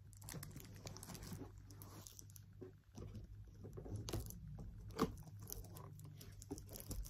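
Plastic wrap and packing tape being torn off a cardboard box by hand: irregular crinkling and tearing, with a louder rip about five seconds in.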